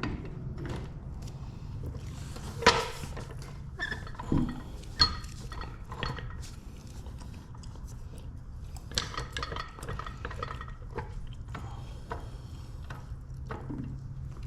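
Metal tools and hardware clinking and knocking in scattered, irregular strokes while a stuck toolbox wheel bolt is being worked loose; the sharpest knock comes about three seconds in. A steady low hum runs underneath.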